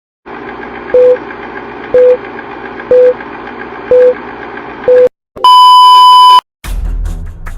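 Electronic beeps in a countdown pattern: five short, loud beeps a second apart over a steady background hiss, then one longer, higher beep.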